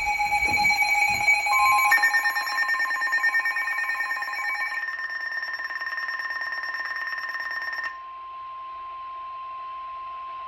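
NOAA Weather Radio warning alarm tone, a single steady beeping-free tone, starting about a second and a half in and holding to the end, heralding a new severe thunderstorm warning. At first it overlaps other steady electronic alert tones, which stop about five and eight seconds in, leaving the single tone quieter on its own.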